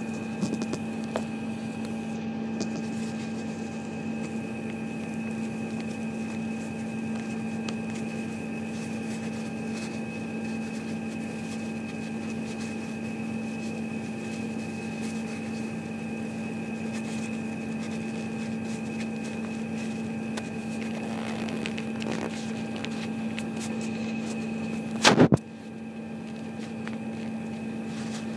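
Diesel engine of a Volvo felling machine running at a steady speed: a constant drone and hum that never changes pitch. A single loud, sharp knock about 25 seconds in.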